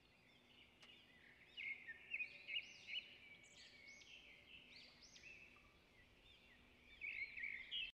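Birds chirping: many quick, arching chirps in overlapping phrases, faint, with louder bursts now and then.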